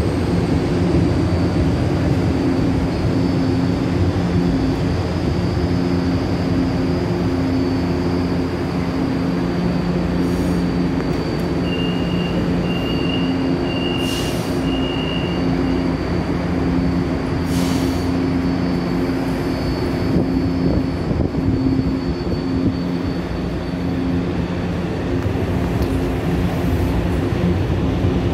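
Electric commuter trains at a station platform, running with a steady hum and a continuous high whine. Near the middle comes a string of short beeps, followed by two brief hisses.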